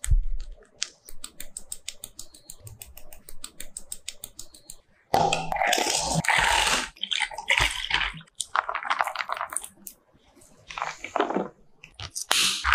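Soft crackling of whipped cream squeezed from a piping bag. About five seconds in, a loud rattle of ice cubes scooped into clear plastic cups, followed by several shorter clattering and splashing bursts as an iced milk-coffee drink is made.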